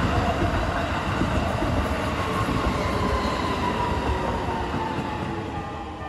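Keikyu electric train passing over a level crossing: a steady rumble of wheels on rails with a whine that falls slowly in pitch, the noise fading near the end as the last car goes by.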